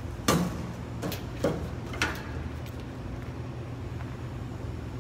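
Kitchen equipment being handled: four knocks and clatters, the first and loudest just after the start and the rest within the next two seconds, over a steady low hum.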